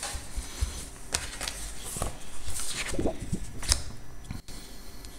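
Paper rustling with a scatter of light taps and clicks as sketchbook pages are handled and turned.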